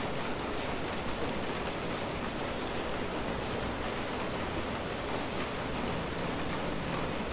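Steady rain falling on a street, a dense even hiss with scattered drop ticks.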